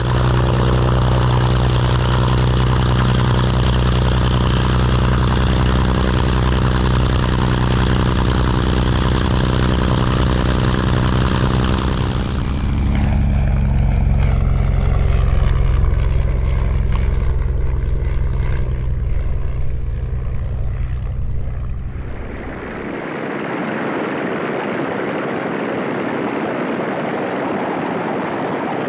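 Albatros D.III biplane's Austro-Daimler engine and propeller running steadily with a deep, even drone. About 12 s in, the sound shifts and wavers as the plane flies past. About 22 s in, the engine drone drops out suddenly and a steady rushing noise takes over.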